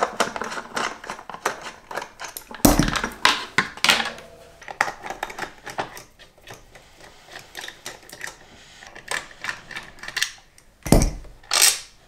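Light clicks and rattles of a hex key and small bolts being undone by hand on a motorcycle's chain guard and sprocket cover, with two louder knocks, about three seconds in and near the end.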